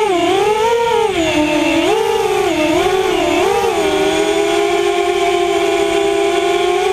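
Multirotor drone's electric motors and propellers whining, the pitch rising and falling several times as the motors change speed, then holding steady from about halfway through.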